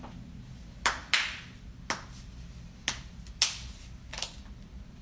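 A person's joints cracking: several sharp pops at irregular intervals, two of them louder with a short ringing tail.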